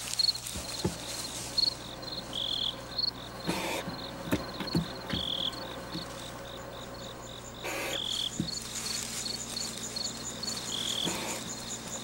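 Crickets chirping at night: a steady pulse of chirps about three a second, joined about halfway by a second, higher-pitched cricket chirping faster. Three short hissy noises break in at intervals.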